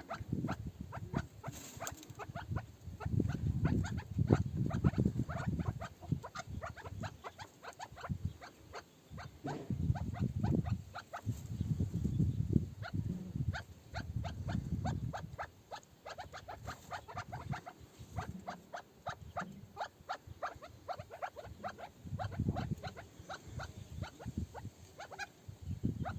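Chukar partridge calling: a long run of short, clipped clucking notes, several a second, with low rumbling swells between them.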